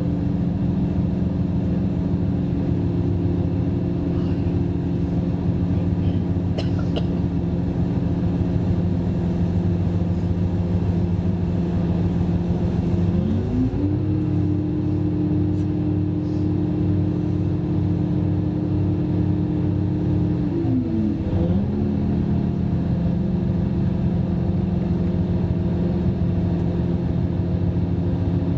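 DB Class 612 RegioSwinger diesel railcar under way, heard from inside the passenger cabin: a steady diesel engine drone over the rumble of the running train. About 13 seconds in, the engine note rises in pitch. It holds there for about seven seconds, then falls back to its earlier pitch.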